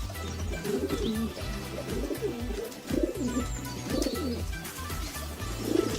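Low animal calls repeated about once a second, each a short rising-and-falling note, over background music.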